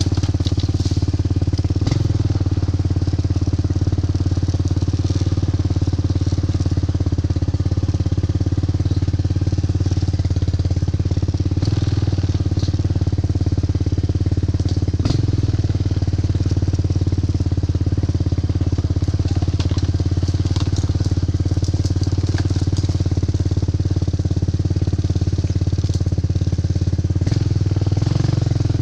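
Four-wheeler (ATV) engine running at a steady speed while riding, with a few brief knocks and rattles over the ground.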